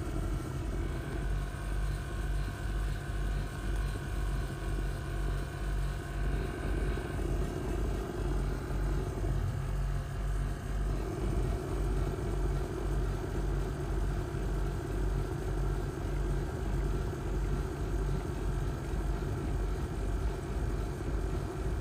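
2021 Toyota GR Supra's turbocharged 3.0 L inline-six idling steadily in Park, heard from inside the cabin as a low rumble with a slow, even pulse.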